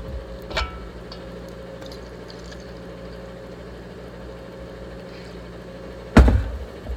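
Steady low hum, with a light knock about half a second in and a heavy thump near the end.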